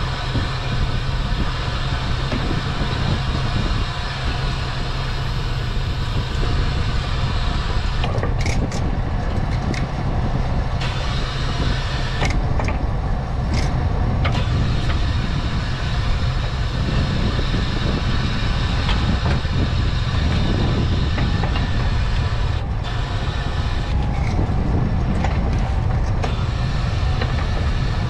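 Small fishing boat's engine running steadily, with scattered knocks and rattles as a steel-framed king crab pot is handled and set down on deck.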